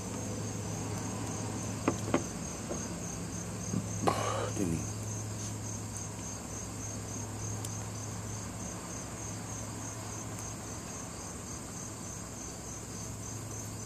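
Crickets chirping in a high, even pulsing rhythm over a steady low hum. A couple of sharp clicks come about two seconds in, and a brief louder rustle about four seconds in.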